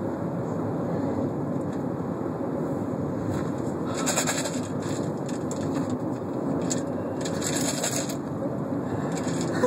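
Steady rumble of a car's interior while driving, with two short hisses about four and seven and a half seconds in.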